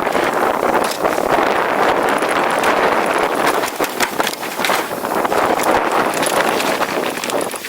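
Heavy wind buffeting on a moving action-camera microphone, a loud steady rush, with scattered knocks and rattles running through it.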